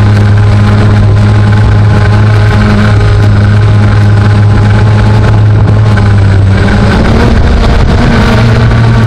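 Quadcopter drone's motors and propellers humming loudly and steadily while it hovers, the pitch shifting slightly about seven seconds in.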